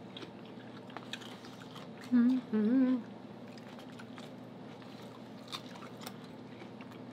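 People eating, close to the microphone: faint chewing and mouth clicks, and about two seconds in a hummed "mmm" of enjoyment in two short wavering parts.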